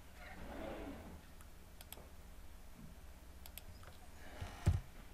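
Light computer mouse clicks: a pair about two seconds in and another pair about three and a half seconds in, then a single dull thump near the end.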